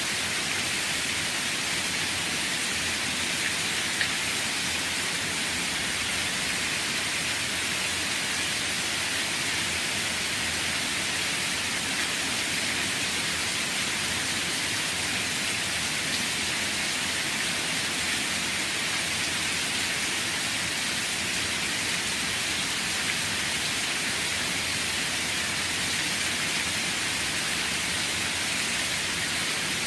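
Steady rain falling, an even hiss strongest in the high range, with one slightly louder drop about four seconds in.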